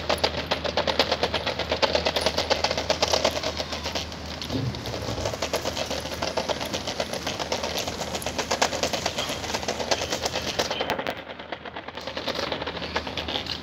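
Small plastic wheels of a child's kick scooter rolling fast over the ribbed surface of a wet ramp walkway, a rapid, even run of clicks over a low rumble. It eases off briefly about eleven seconds in, then picks up again.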